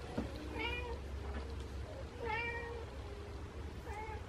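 Mother cat meowing: three short calls about a second and a half apart, each rising then falling in pitch, her "talking" on coming back to her kittens.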